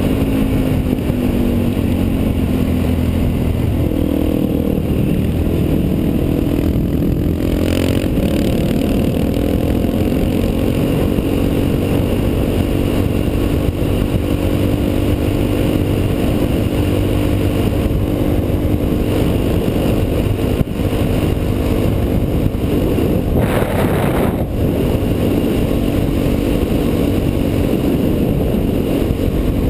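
Onboard sound of a Suzuki DR-Z's single-cylinder four-stroke engine running under throttle at speed, its pitch rising and falling with shifts and throttle changes in the first ten seconds or so, then holding steady, over constant wind noise. A brief louder rush of noise comes about three-quarters of the way through.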